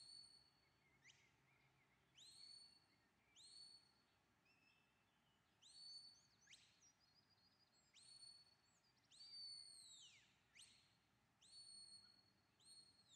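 A shepherd's herding whistle giving a series of about ten shrill whistle commands to a sheepdog. Most are short and start with a quick upward slip, then hold one high pitch. A few slide sharply downward, and one longer whistle near the middle ends in a falling slide.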